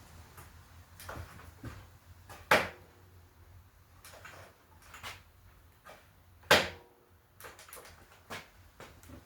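Tools and bicycle parts being handled: scattered light clicks and knocks, with two sharper, louder knocks about two and a half and six and a half seconds in.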